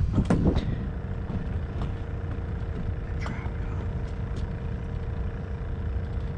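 A steady low rumble with a faint constant hum, broken by a few light clicks in the first second and one more about three seconds in.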